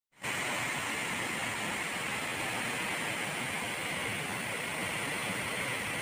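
Waterfall pouring down a rock face into a plunge pool: a steady rushing hiss of falling water that fades in at the very start.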